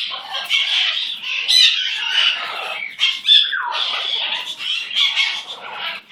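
Pet bird chattering and squawking in harsh, rapid bursts, with one downward-sliding call about three and a half seconds in.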